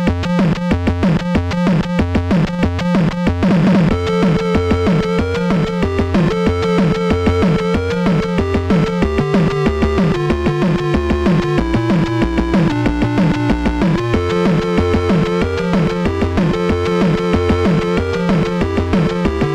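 Background electronic music: a steady synthesizer beat, with a sweep about three and a half seconds in, after which a held synth melody comes in.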